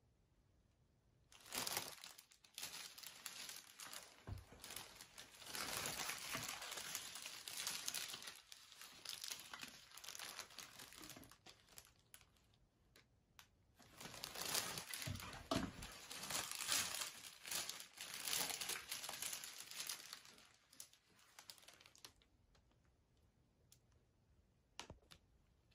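Gift wrapping being crinkled and torn open by hand. The rustling starts a second or two in, eases off midway, picks up again and stops a few seconds before the end.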